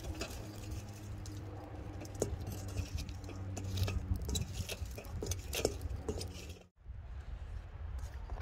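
Scattered light clinks and knocks of a charcoal barbecue being worked, as the coals are knocked down with a stick and the grill readied, over a low steady hum. The sound drops out briefly about two-thirds of the way through.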